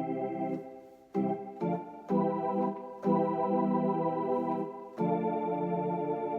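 Alesis Recital digital keyboard on its organ voice, playing a series of sustained chords; the chords change about five times, one of them held for close to two seconds.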